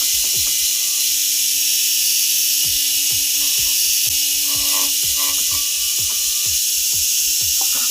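A power tool running steadily with a strong hiss over a steady hum and regular low thumps.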